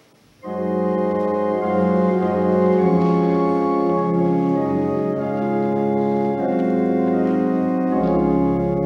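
Church organ starting suddenly about half a second in and playing sustained chords; a deep bass pedal note joins near the end.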